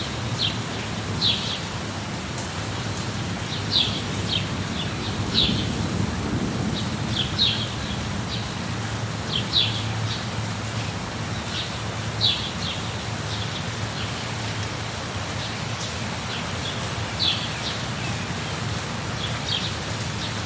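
Steady rain with a low rumble of thunder that swells a little around the middle, and short high bird chirps repeating every second or two.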